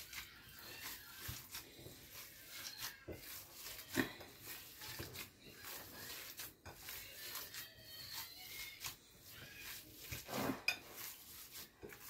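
Bare hands kneading and squeezing spiced minced meat in a glass bowl: faint, soft, irregular squishing, with a few light clicks.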